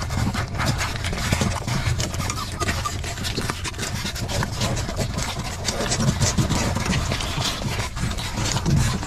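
A litter of puppies nursing from their mother dog, with rapid, irregular wet sucking and smacking clicks over a steady low rumble.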